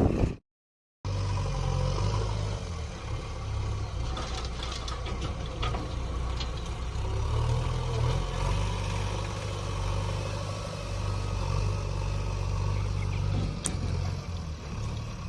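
Diesel engine of heavy earthmoving machinery running steadily, its pitch swelling up and down under load, with a few short metallic clanks partway through. The sound drops out briefly just after the start.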